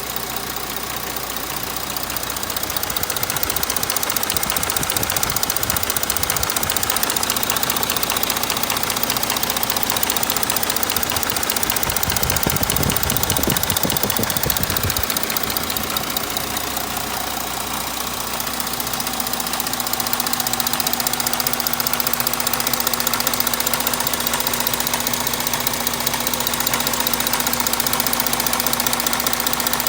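Audi 3.0 TDI V6 diesel engine running steadily with a fast, even ticking clatter. A deeper rumble swells briefly about twelve seconds in, and a steady hum joins from about nineteen seconds in.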